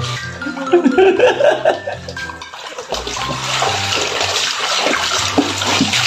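Running water over background music with a steady stepped bass line; the water grows fuller about halfway through.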